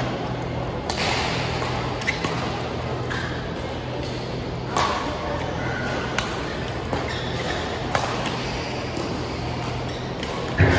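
Badminton rally: rackets striking the shuttlecock back and forth, about six sharp hits a second or more apart, over a steady low hum.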